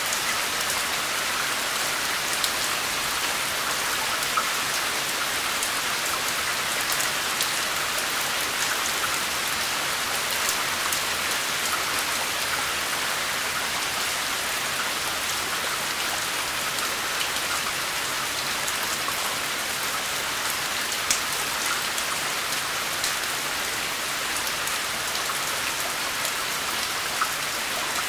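Steady rain falling on a surface: an even hiss with many individual drops ticking sharply through it.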